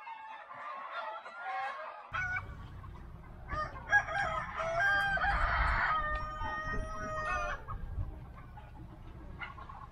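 Chickens clucking, with a rooster crowing partway through.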